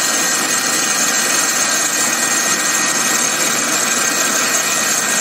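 Electric mixer grinder running steadily at speed, its blades grinding muskmelon seeds, ice and sugar into a thick paste without water: a loud, even motor whine with grinding noise.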